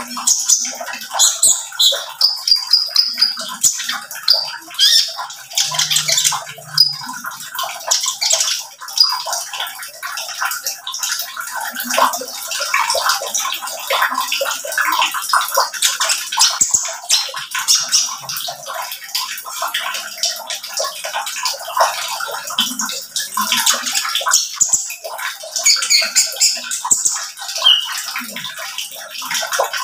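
Male Van Hasselt's sunbird (kolibri ninja) singing a fast, unbroken run of high, thin chirps and twitters.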